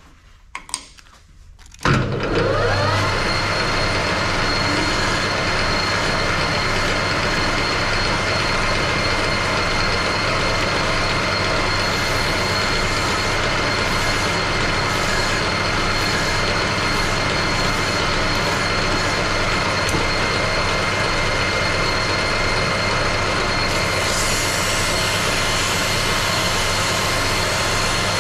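Metal lathe starting up about two seconds in, its whine rising as it comes up to speed and then running steadily with the four-jaw chuck spinning. Near the end a finer rubbing hiss is added as emery cloth polishes the turning steel shaft.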